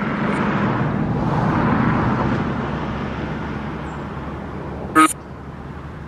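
Necrophonic spirit box app playing rushing white noise with echo through a small speaker. The noise swells over the first couple of seconds and then fades. One short, clipped, voice-like fragment cuts in about five seconds in.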